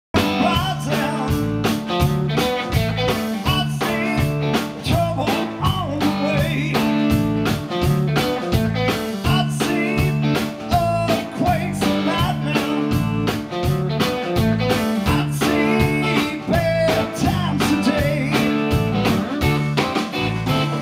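Live rock band playing: electric guitars over drums with a steady, even beat.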